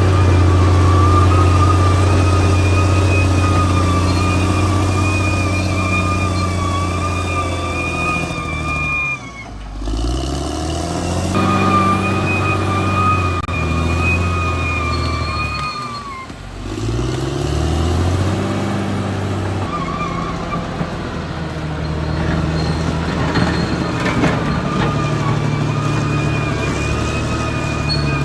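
Caterpillar D6R XL bulldozer's diesel engine running under load, with a high whine above the engine note. Twice the revs drop sharply and then build back up.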